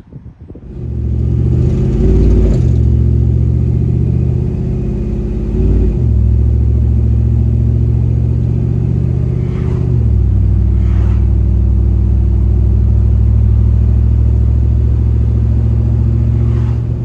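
Procharger-supercharged Chevy OBS pickup's engine heard from inside the cab while driving, a loud, steady low drone. Its note changes briefly about two, six and ten seconds in.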